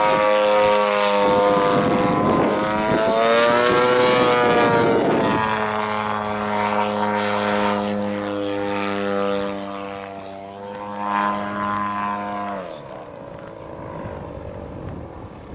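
Engine and propeller of a 1/3-scale Piper Super Cub radio-control plane in flight, its pitch rising and falling as it manoeuvres. About two-thirds of the way through the pitch drops sharply and the sound grows fainter.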